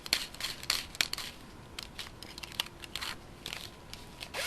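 Light clicks and rattles of small parts being handled at a workbench, with a short louder burst near the end.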